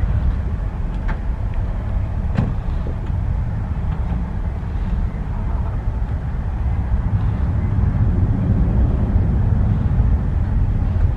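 Jet airliner engines rumbling steadily as an aircraft takes off or lands, a deep low rumble, with a light click about two and a half seconds in.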